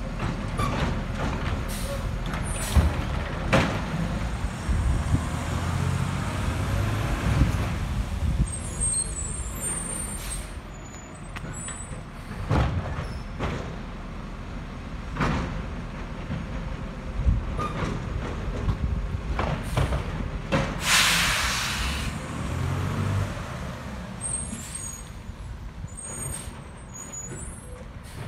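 Automated side-loader garbage truck working along a street: its engine running steadily while the arm lifts and empties carts, with repeated sharp knocks and bangs of carts and arm. A long hiss of the air brakes comes about two-thirds of the way through.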